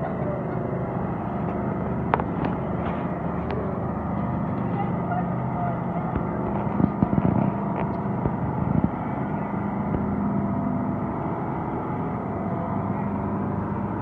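Steady motor hum over outdoor background noise, with a sharp click about two seconds in and a short cluster of knocks about seven seconds in.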